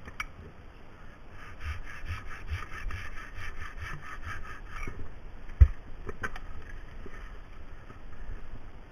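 Hand pruning saw cutting through a linden branch in quick, rhythmic strokes, about four a second. A single sharp knock comes about halfway through, and the sawing starts again more weakly after it.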